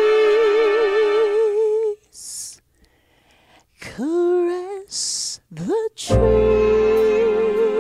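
A woman singing a slow song into a microphone: a long held note with vibrato, audible breaths between short rising phrases, then another held note with vibrato as a deep bass accompaniment comes in about six seconds in.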